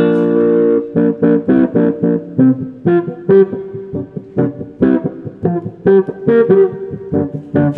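Fender Kingfish Telecaster Deluxe electric guitar being played: a chord rings for under a second, then a quick riff of single picked notes and short double-stops.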